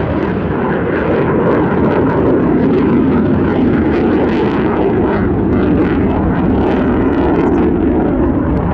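Mitsubishi F-15J Eagle fighter's two F100 afterburning turbofan engines, a loud, steady jet rush with a rough crackle in it as the jet banks through a turn in a display flight.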